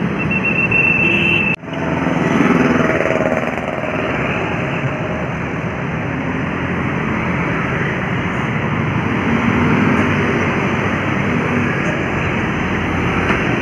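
Roadside traffic noise: engines of passing vehicles such as buses and motorcycles, a steady dense rumble. A brief high steady tone sounds in the first second and a half and cuts off abruptly.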